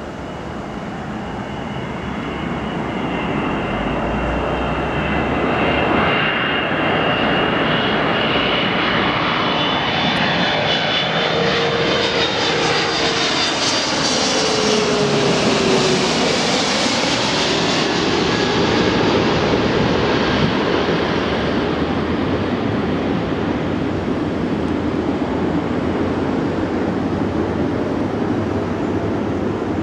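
Airbus A330-223 wide-body jet with Pratt & Whitney PW4000 turbofans flying low overhead on final approach. The jet noise builds, and its whining engine tones fall in pitch as it passes overhead about halfway through. A steady rumble follows as it moves away.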